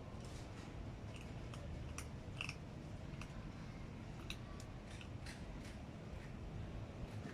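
A cat chewing food, with irregular crisp crunches about two a second over a steady low rumble.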